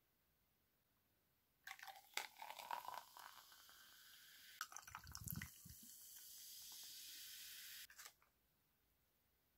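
Cola poured from a can into a glass of ice: a splashy pour with clicks from the ice, then a steady fizzing hiss that cuts off suddenly about eight seconds in.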